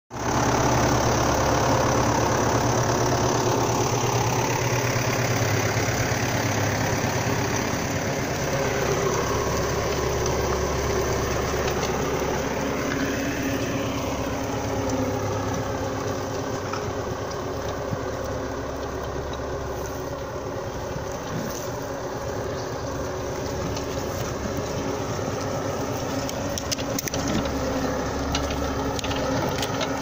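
MTZ Belarus 1025.3 tractor's four-cylinder diesel engine running steadily under load while pulling a four-furrow plough through the soil, with a few sharp clicks in the second half.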